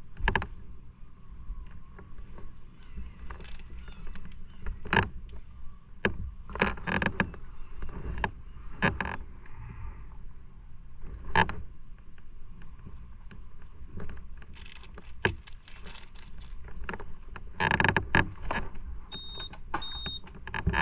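Irregular clicks, knocks and rubbing of an action camera being handled and carried on foot, over a low steady rumble. Two short high beeps sound near the end.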